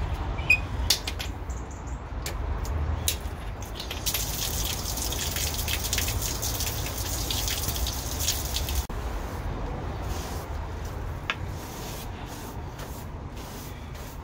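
Hose spraying water onto a wet concrete path while a stiff broom scrubs it down. A few sharp clicks come near the start, and the spray hisses loudly from about four seconds in until it cuts off suddenly about nine seconds in. After that, brush strokes on the wet concrete continue.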